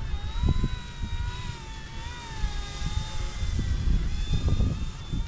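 Eachine E120 toy RC helicopter flying, its small electric motor and rotor giving a steady high whine that wavers gently in pitch. Wind gusts buffet the microphone with a louder, uneven low rumble.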